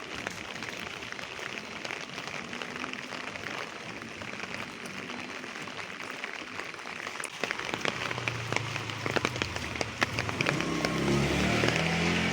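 Light rain falling steadily, with individual drops ticking on surfaces more often from about halfway through. A low hum with a steady pitch comes in under the rain a few seconds before the end, and the sound grows louder.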